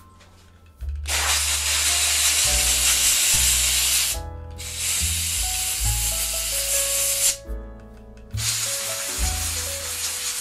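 Aerosol spray hissing in three long bursts of a few seconds each, over background music with piano and bass.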